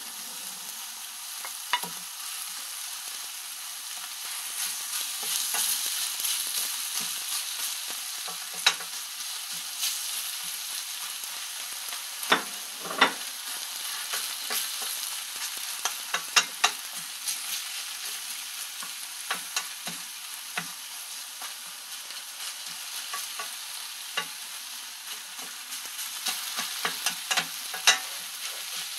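Chicken breast and sliced vegetables sizzling as they stir-fry in a stainless steel pan, with a wooden spatula scraping and knocking against the pan every few seconds, the knocks coming more often in the middle and near the end.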